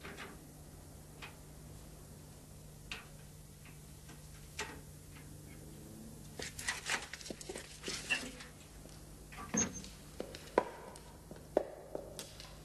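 Scattered quiet clicks, taps and knocks of someone handling things and moving about, few at first and coming more often in the second half, over a steady low hum.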